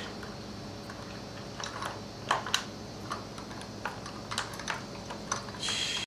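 Irregular small clicks and clinks of metal parts as the centrifugal clutch weights and spring of a string trimmer are fitted back on by hand.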